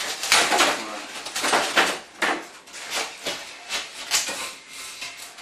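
Cut blocks of expanded polystyrene foam rubbing and squeaking against each other in a series of short scrapes as the pieces are pulled apart and lifted.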